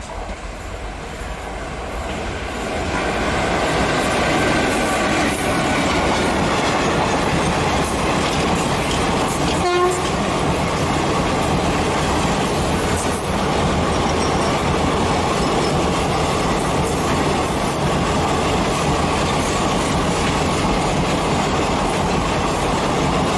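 Passenger express train hauled by an electric locomotive running past at speed: the rumble and clatter of coach wheels over the rails builds over the first few seconds and then holds loud and steady. A short horn blast sounds about ten seconds in.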